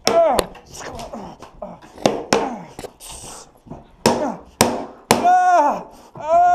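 A large dog giving repeated short calls, each rising then falling in pitch, with several sharp knocks and thumps between them.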